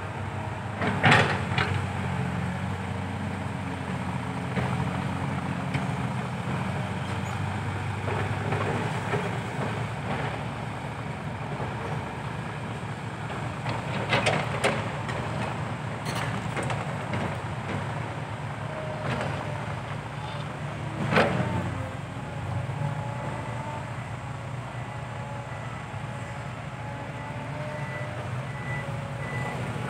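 Heavy diesel machinery, dump trucks and an excavator, running steadily at a digging site. Three short knocks stand out over it: about a second in, near the middle and about two-thirds of the way through.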